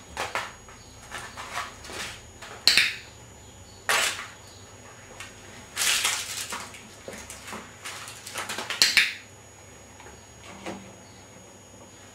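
Irregular bursts of rustling with sharp clicks and knocks: paper being handled, and a plastic bowl on a tiled floor as a dog noses the paper out of it.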